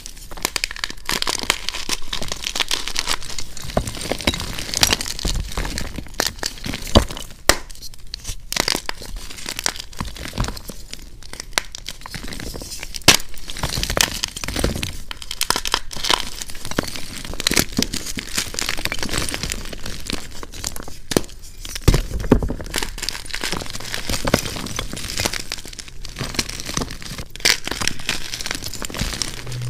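Blocks of gym chalk being crushed and crumbled between the fingers: a dense, continuous crunching and crackling with frequent sharp snaps as pieces break.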